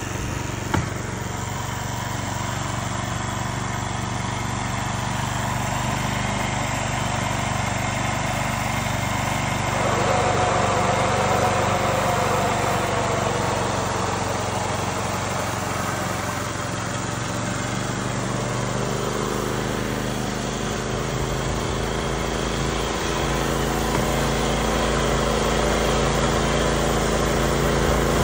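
Small engine of a tracked crawler crop sprayer running steadily. About ten seconds in, a higher, wavering whine joins it as the sprayer starts misting the plants.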